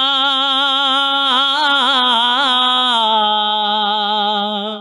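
A man singing a naat unaccompanied into a microphone, holding one long note with vibrato. Around the middle he adds a quick run of ornaments, then steps down to a lower held note about three seconds in, fading out at the very end.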